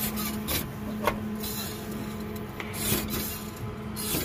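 Rubbing and scraping from the handheld camera phone being moved around, in short irregular bursts over a steady low hum.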